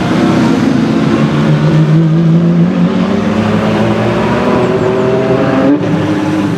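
Apollo IE's naturally aspirated V12 engine running, its pitch drifting up and down a little, with a brief dip about six seconds in.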